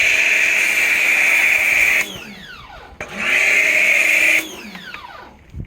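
WAP electric pressure washer motor running with a steady whine, cutting off about two seconds in and winding down, starting up again a second later, then cutting off and winding down once more. A short knock comes near the end.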